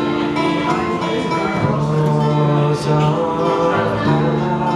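Acoustic guitars playing live, with notes held and changing every second or so, along with some singing.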